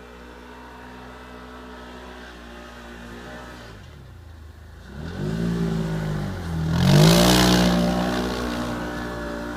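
Can-Am Commander side-by-side's V-twin engine idling steadily, then revving up about five seconds in and again, harder, about seven seconds in as it accelerates, with a loud rush of noise on the second rev. It then runs on at a steady, higher speed.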